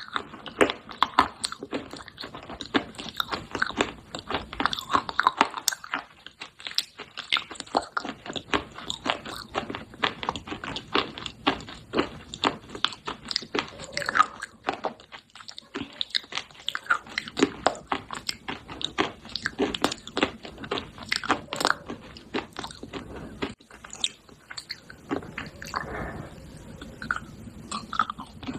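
Close-up crunching and chewing of pieces of baked clay pot, a dense run of sharp, irregular crunches with short pauses between bites.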